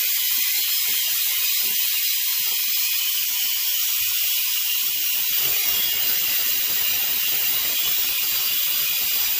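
Pigeon pressure cooker whistling: steam hisses loudly and steadily out from under the weight valve, with the weight rattling from about five seconds in. This is the whistle that shows the cooker has come up to pressure.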